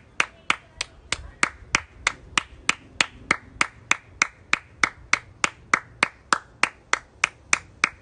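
One person clapping their hands in a steady rhythm, about three claps a second.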